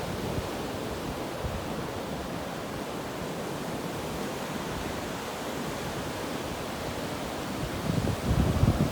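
Ocean waves washing ashore: a steady surf hiss, with a louder low rumble swelling up near the end.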